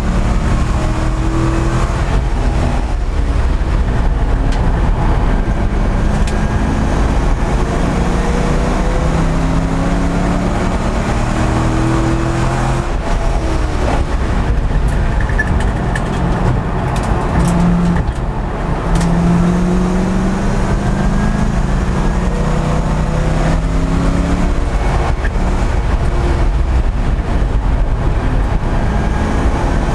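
Race car's engine heard from inside the cockpit under hard driving, its pitch rising and dropping again and again as it accelerates and backs off through the corners, over constant road and wind noise.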